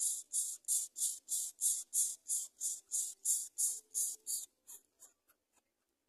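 Rapid, evenly spaced raspy hisses, about three a second, that weaken and stop near the end: the begging calls of greater coucal nestlings.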